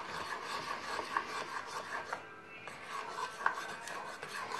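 A spoon stirring and scraping a sticky slime mix of glue and shaving foam around a bowl, with small clicks of the spoon against the bowl and a brief lull about halfway through.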